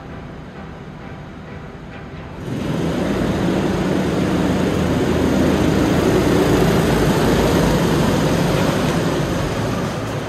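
Small engines of a pack of rental go-karts running on the track, suddenly much louder about two and a half seconds in and staying loud.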